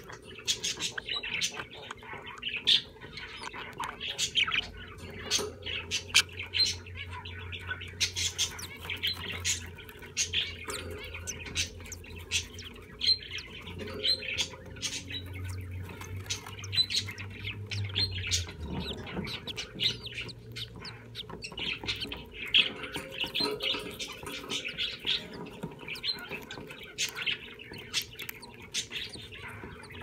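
Budgerigars chirping and chattering in quick, irregular short calls, with a low hum underneath through the first half or so.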